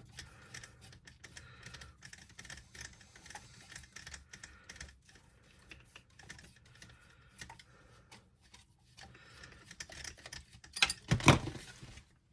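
Small irregular clicks and ticks of a hand driver and tiny metal shock parts being worked by hand while unscrewing an RC truck's shock assembly, with a louder brief clatter near the end.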